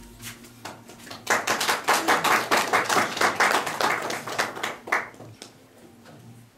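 Audience applauding: a burst of clapping starting about a second in and dying away after about four seconds.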